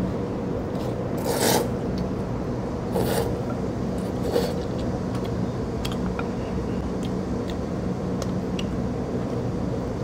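A person slurping noodles: three short slurps in the first half, then fainter eating noises and small clicks.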